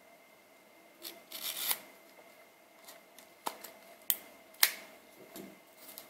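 Box cutter slicing open the seal of a small card box: a string of short scrapes and sharp ticks at uneven spacing.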